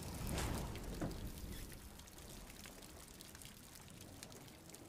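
Rain falling, with a steady hiss of water and many scattered drips. Two louder knocks come about half a second and a second in.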